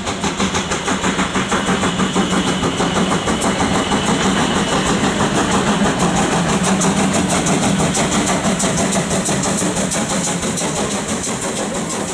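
Steam locomotive working past at speed, with rapid, even exhaust chuffs, about three a second, over the hiss of steam from its open cylinder drain cocks. The beats blur and fade a little near the end as it moves away.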